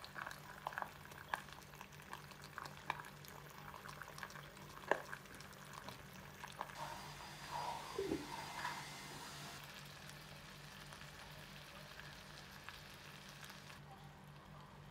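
Spinach and eggs faintly crackling and sizzling as they cook in a small electric pot. About eight seconds in, the glass lid is handled with a short clink.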